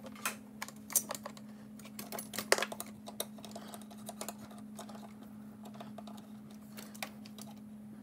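Scattered light clicks and taps, thicker in the first few seconds and sparser after, over a steady low hum.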